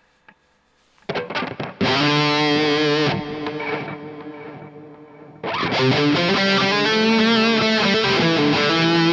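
Distorted electric guitar, a Gibson Les Paul through an Engl Fireball 25 boosted by a Tube Screamer, played through an EarthQuaker Devices Dispatch Master delay and reverb pedal with all its knobs at noon. A few picked notes lead into a loud held chord that rings out and fades with echo and reverb trails, then a fast riff starts about five and a half seconds in.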